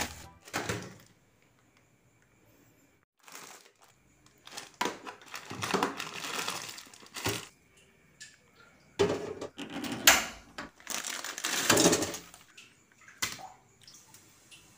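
Plastic instant-noodle packet and seasoning sachets crinkling and tearing in short irregular bursts, with a few clicks and light knocks of a pot and plate while the noodles are made.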